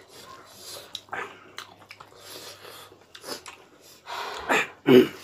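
People eating with their hands and chewing close to the microphone: irregular wet chewing and smacking with breaths through the nose, and a louder short sound near the end.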